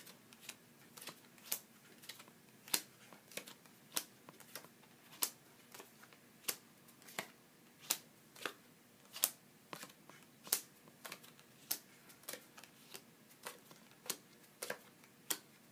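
Playing cards dealt face up one at a time onto a wooden tabletop, each card landing with a short, sharp click, in a steady rhythm of about three cards every two seconds.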